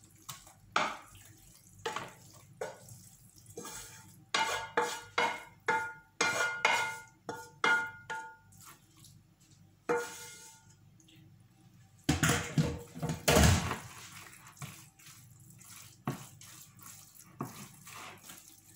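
A wooden spatula knocking and scraping against a frying pan and a ceramic bowl as a cooked spinach mixture is emptied from the pan: a quick run of sharp taps with a short ringing about four to eight seconds in, another ringing knock near ten seconds, and a louder clatter of cookware about twelve to thirteen seconds in.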